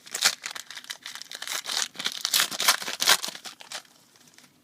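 Crinkling and tearing of a foil trading-card pack wrapper being handled and opened, in a quick run of crackles that dies away about four seconds in.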